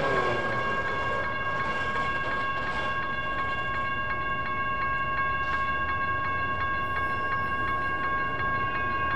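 Electronic railroad crossing bell ringing continuously as a steady tone while the crossing is activated for an approaching light-rail train.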